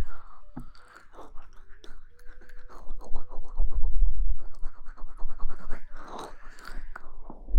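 Close-miked ASMR rustling and scratching right at the microphone: a dense run of small crackles and clicks, with a few low bumps in the middle.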